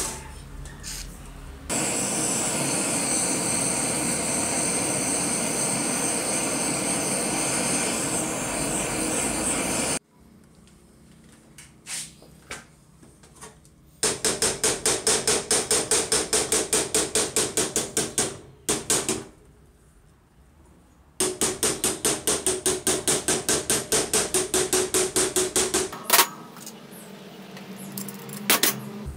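Rapid hammer blows, about five a second, on a steel bar pressed against a rusted V-belt pulley to drive it off an old electric motor's shaft, in two runs of several seconds each. Before the hammering there is a steady rushing noise for several seconds.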